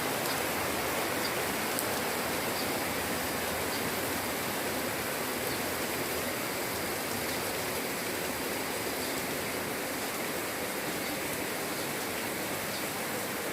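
Light rain falling steadily, an even hiss with a few faint ticks of drops.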